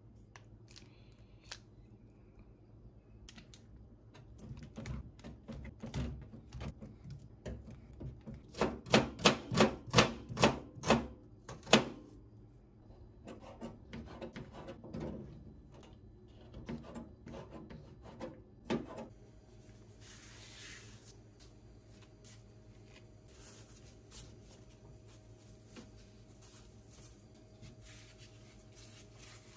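Kitchen knife cutting on a cutting board: scattered taps, then a quick run of about ten sharp strikes around the middle, then slower, softer cuts. For the last third, only a faint steady hum with light handling sounds.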